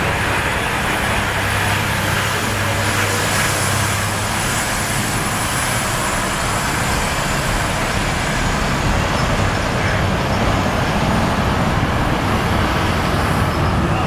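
Steady road traffic noise from a heavy truck with dump trailers and cars driving past close by, with a low engine hum that fades about four seconds in.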